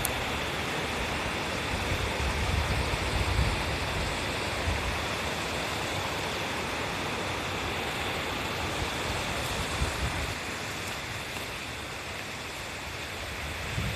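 Mountain stream rushing steadily over rocks, with a few soft low rumbles of wind on the microphone in the first few seconds.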